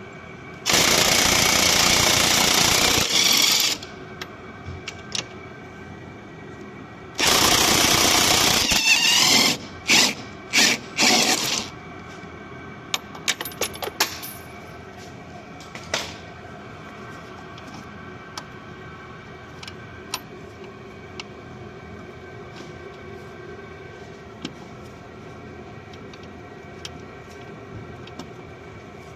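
Starter motor cranking the engine of a Renault that won't start, which has a camshaft sensor 'no signal' fault (DF116). It cranks in two long bursts of about three and two seconds, then three short ones, followed by scattered clicks.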